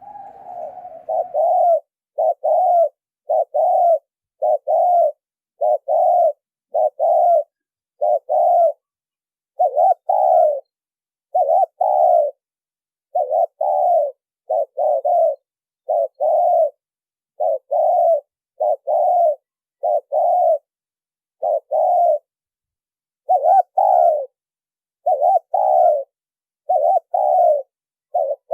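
Spotted dove cooing over and over, about one phrase a second, each phrase two or three short low coos with clean silence between. It is a lure call for drawing in wild doves.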